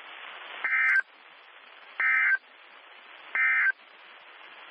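Three short bursts of Emergency Alert System data tones, evenly spaced with radio hiss between them: the end-of-message code that closes the severe thunderstorm warning broadcast.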